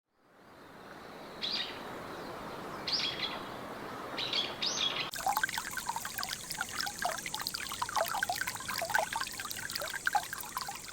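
Steady rain with a bird calling briefly four times. About five seconds in, it changes abruptly to closer water trickling and dripping.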